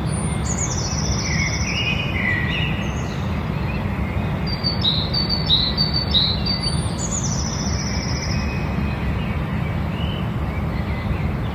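Songbirds singing: two high phrases that fall in pitch, about a second in and again after seven seconds, and a run of three short repeated notes in the middle, over a steady low rumble.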